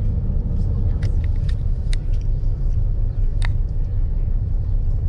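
Steady low rumble of a passenger boat's engines heard on board while the boat is under way, with a few light clicks over the top.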